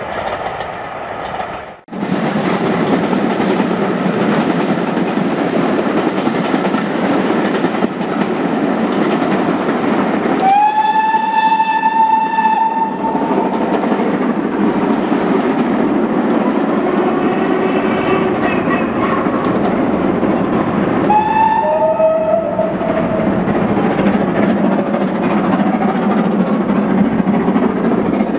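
Steam locomotive working a passenger train along the line, a steady rush of exhaust and rail noise, with a long steam-whistle blast about ten seconds in and a shorter whistle about twenty-one seconds in that drops in pitch partway through.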